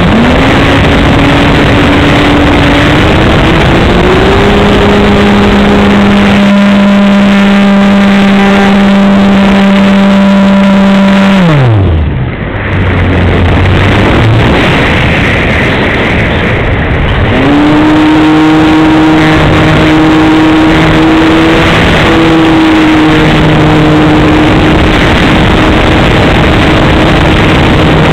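Electric motor and propeller of a Carbon-Z Yak 54 RC aerobatic plane, heard from its onboard camera as a whine over heavy wind rush on the microphone. The pitch climbs in steps, holds steady, then slides steeply down about twelve seconds in as the throttle comes off, and rises again a few seconds later to a steady higher whine.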